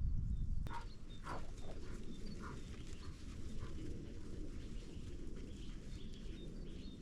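Faint bird chirps repeating over a low steady outdoor rumble, with a few brief sounds in the first couple of seconds.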